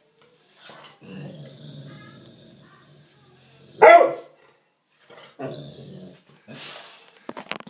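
A French mastiff (Dogue de Bordeaux) growling low for about two seconds, then one loud bark about four seconds in, followed by shorter grumbling growls.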